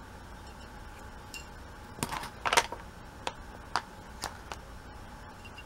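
Tableware being handled: a knife, a plate and a foil cake pan. A short cluster of clatter comes about two seconds in, then a few single light taps follow at about half-second intervals.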